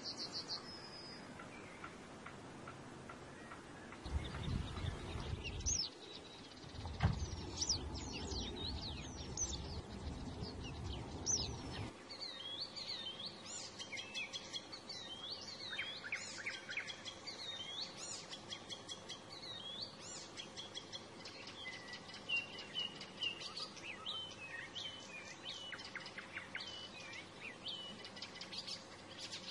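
Small birds chirping and singing, with many short high calls and whistles overlapping. A low rumble runs under them during the first part and stops about twelve seconds in.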